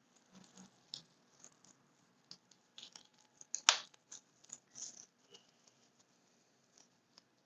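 Scattered small clicks and taps from handling a vintage mechanical wristwatch, with one sharper click about three and a half seconds in.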